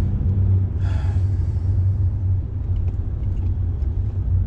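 Car engine and road rumble inside the cabin while driving, a loud steady low drone. The engine note drops about a second in and rises again near the end, and a short higher-pitched sound comes about a second in.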